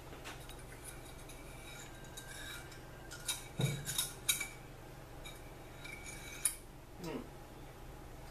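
Metal-on-metal clinks and taps from a Turbo 400 transmission clutch drum and its parts being handled and fitted on a steel workbench. There is a quick cluster of sharp clinks a few seconds in and another single clink a little later.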